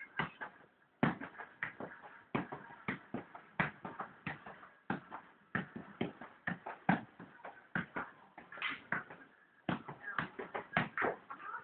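Small size-1 football being juggled, each touch a dull thud in a steady rhythm of about three touches every two seconds.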